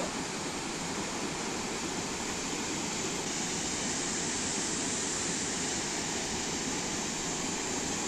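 Steady rush of falling water from the Tamda Ghumar waterfall, where the Indravati river drops about 100 feet.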